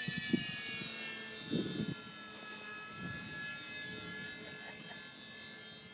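Electric RC model P-47 flying overhead: the whine of its electric motor and propeller, a stack of high tones whose pitch sags slightly midway and then comes back up, slowly fading. Two brief low bumps come in the first two seconds.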